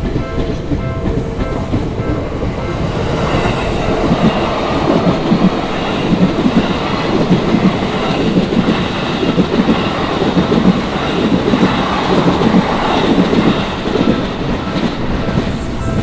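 Electric commuter train passing over a level crossing, its wheels clacking rhythmically over the rail joints. It starts about three seconds in and clears near the end. The crossing's alarm bell dings steadily at the start and is heard again as the train fades out.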